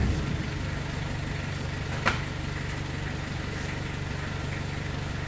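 Delivery box truck's engine idling steadily, a low even hum, with one sharp knock about two seconds in.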